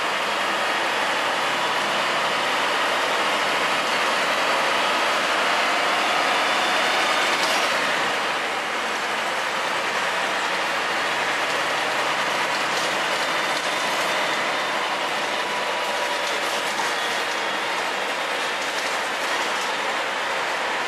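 Bus under way, with the steady running of its engine and road noise, and light clicks and rattles of the bodywork joining in the second half.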